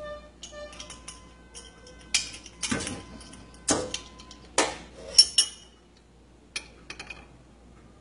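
Metal spoon clinking and scraping against a glass bowl of crushed-cookie mixture: a run of sharp knocks, some briefly ringing, strongest in the middle, with a few lighter clicks near the end.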